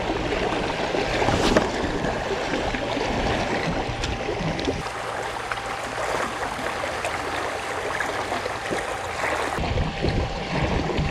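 Steady wash of sea water against breakwater rocks, with a brief sharp click about one and a half seconds in.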